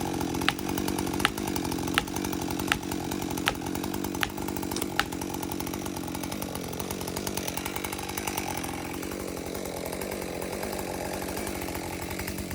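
Chainsaw running steadily while a felling wedge is driven into the cut with seven sharp blows, about one every three-quarters of a second. After about five seconds the blows stop and the saw runs on alone.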